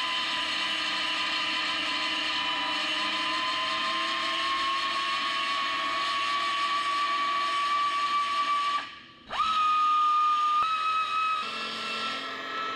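Pneumatic belt sander grinding the factory rivets off an aluminum truck bedside, running with a steady high whine whose pitch creeps slightly upward. It cuts out briefly about nine seconds in, then starts again at a slightly higher pitch.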